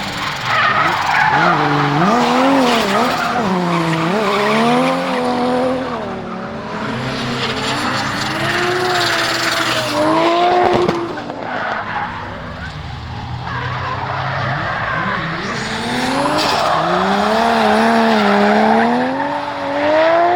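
Turbocharged RB25DET straight-six in a drifting Nissan 200SX S14, heard from inside the car, revving up and down as the throttle is worked through the slides, with tyre squeal and skidding. The revs climb to a peak and drop away about halfway through, and climb again at the end.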